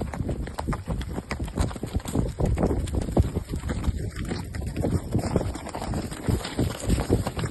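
A ridden horse's hooves striking the ground in quick, uneven hoofbeats, several a second.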